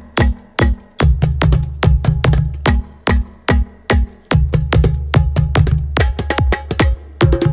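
Electronic music with a steady drum-machine beat, about two strikes a second, over a deep bass line.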